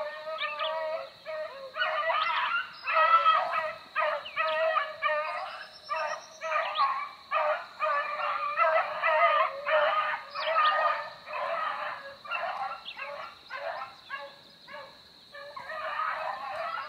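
A pack of beagles baying in near-continuous chorus, several voices overlapping, while they run a rabbit on its scent trail.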